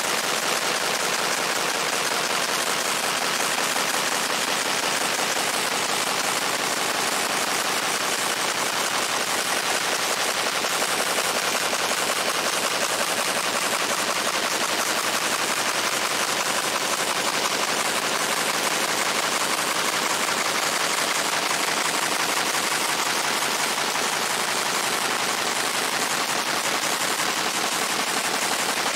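Fiber laser engraving a steel sledgehammer head: a steady, dense, rapid crackle as the laser pulses ablate the metal.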